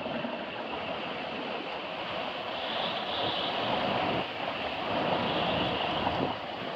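Passenger hovercraft running on its air cushion: a steady rushing drone from its fans and ducted propellers, a little brighter and higher in the middle.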